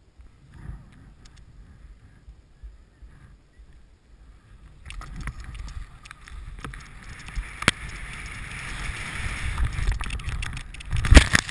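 A rider sliding fast over choppy, tracked snow, heard through a GoPro action camera: a steady rushing and scraping sets in about five seconds in after a quiet stretch, with scattered sharp knocks. A burst of loud thumps comes near the end.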